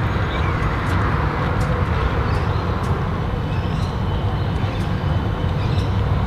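Steady street traffic noise, an even rumble of passing road vehicles with a few faint ticks.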